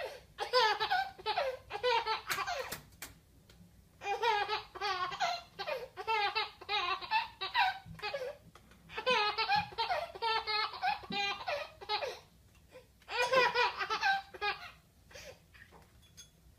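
A baby laughing hard in several bouts of rapid, high laughter separated by short pauses.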